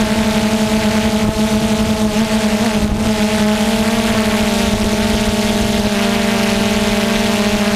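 DJI Phantom quadcopter's motors and propellers humming steadily, picked up by the drone's own onboard microphone: one low hum with several overtones over a constant rush of air from the propellers.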